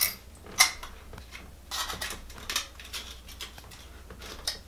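Metal painter's tool scraping old wax off a toilet flange in a series of short, irregular strokes.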